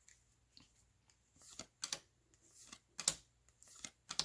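Handling of a foil baseball card pack and its cards: soft crinkling with a few sharp clicks.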